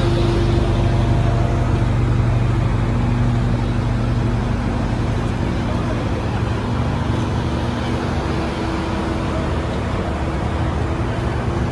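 Rally car engines idling steadily, a low even hum with no revving.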